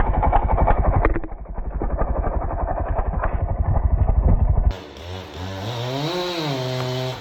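Stihl chainsaw running hard with a rough, uneven sound while cutting into a dead oak. About two-thirds of the way through, the sound changes abruptly to a chainsaw engine that rises in pitch, drops back and then holds steady.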